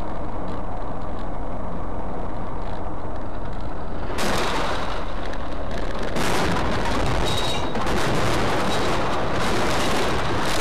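Engine and road noise inside a vehicle cab on a dashcam. From about four seconds in it turns into a loud, harsh noise, then a run of crashing impacts and crackling as the vehicle collides and its windshield shatters.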